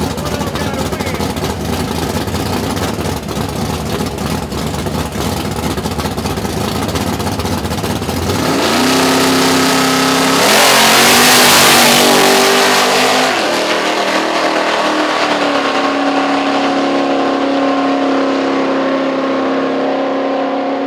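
Two big-rim donk drag cars rumbling heavily at the starting line, then revving and launching at full throttle about ten seconds in. It is loudest as they leave the line, then their engines pull away down the track as a thinner, fading drone.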